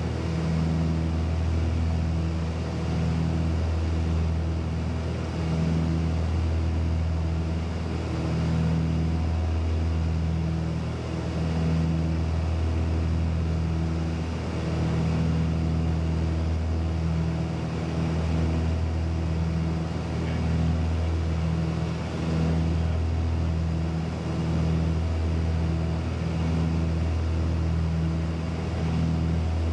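Steady drone of an aircraft engine heard from inside the cabin, a deep hum with a slow swelling every couple of seconds.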